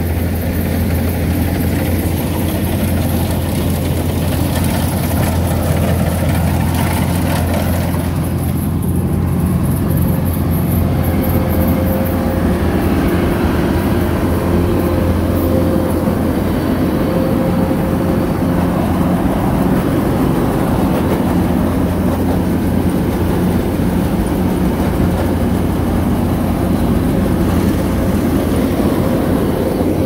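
Tracked rice combine harvester running steadily at close range as it moves through the rice: a low, even engine drone under the noise of its machinery.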